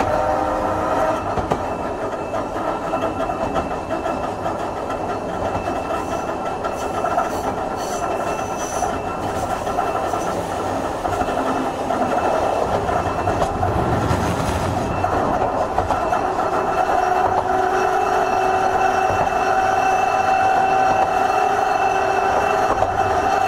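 Hankai Tramway Type 351 tram (car Mo 354) running, heard from inside the car: the steady rumble of wheels on rail with some clattering over the track. Its nose-suspended traction motors give a pitched hum that comes through clearly in the last several seconds.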